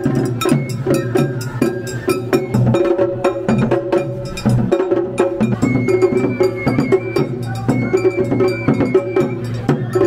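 Japanese festival float music (matsuri bayashi) played live: quick, steady clanging of a small metal hand gong over drum strikes, with a high melody line joining about halfway through.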